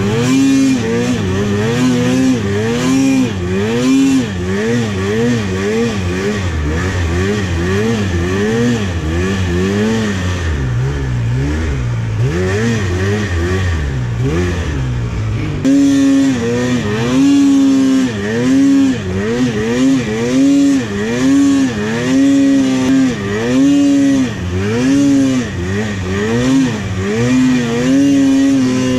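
Polaris Pro RMK 800 snowmobile's two-stroke twin engine revving up and down over and over, about once a second, as the sled is throttled through deep powder. It gets louder about halfway through.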